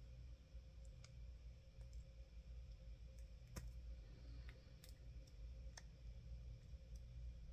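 Near silence: a low steady room hum with about half a dozen faint, scattered small clicks, the clearest about three and a half seconds in.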